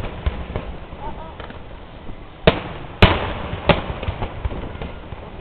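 Aerial fireworks bursting: three loud bangs in quick succession just past the middle, with softer pops and rumble between them.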